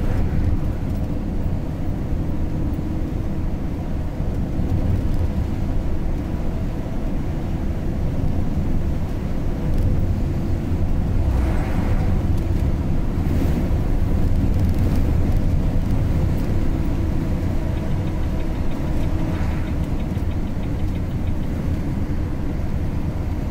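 Steady road and engine noise of a vehicle driving on a highway, heard from inside: a low rumble with faint steady tones above it, swelling briefly about halfway through and again a few seconds before the end.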